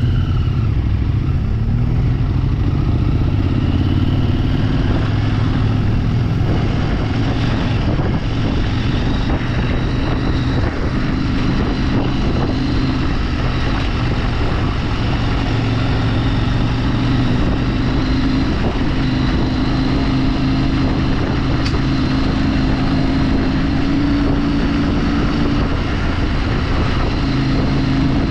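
Motorcycle engine running under way at a fairly steady pitch, mixed with a continuous rush of wind and road noise.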